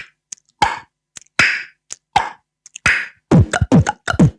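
Beatboxed imitation of a table tennis ball: single sharp mouth pops about every 0.7 s, then a fast run of pops falling in pitch, about five a second, near the end.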